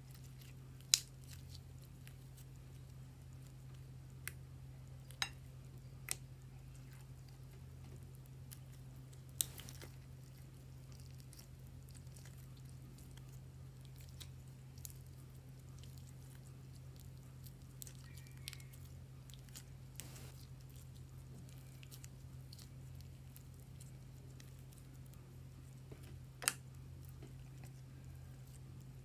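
Homemade slime being handled, with a few scattered soft squishes and short, sharp clicks over a steady low hum.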